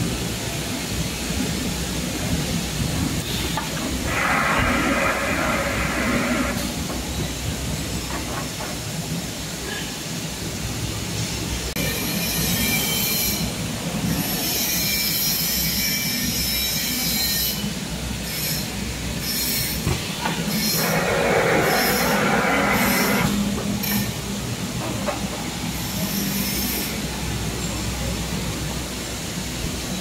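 Plastic sheet extrusion line running: a steady machine hum with continuous mechanical noise. Twice, a louder rush of noise lasts a couple of seconds. In the middle there is a stretch of high hissing that breaks into short bursts about once a second.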